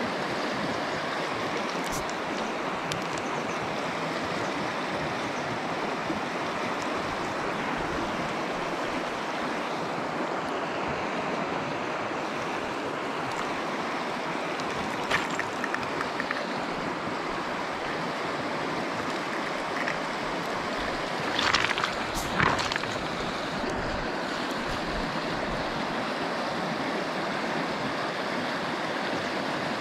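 Shallow river riffle rushing steadily over stones. A brief knock comes about halfway through, and a couple of louder short knocks or rustles come about three-quarters of the way in.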